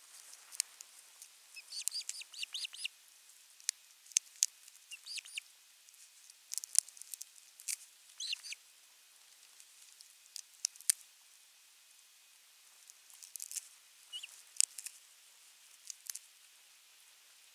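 Ospreys at the nest giving short, high chirping calls in scattered bursts, with sharp clicks in between.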